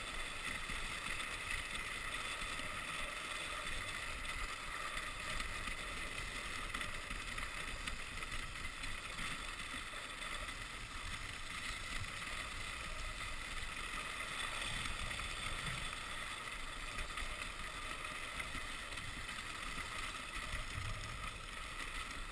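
Dog sled runners gliding over packed snow, a steady hiss that stays even throughout.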